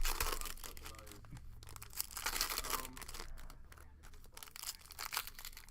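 Plastic trading-card pack wrappers being torn open and crinkled, in irregular rustling bursts with a sharp snap at the start.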